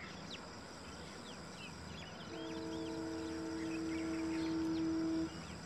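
A distant horn sounds one steady chord of several notes for about three seconds, growing louder and then cutting off sharply, over birds chirping.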